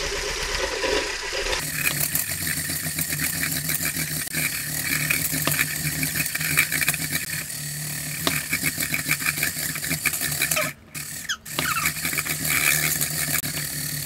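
Electric hand blender with a whisk attachment running in a plastic bowl, whisking egg yolks as oil is trickled in to emulsify into mayonnaise. The motor runs with a steady hum and a scratchy whirr, gets louder about a second and a half in, and stops twice briefly about three quarters of the way through.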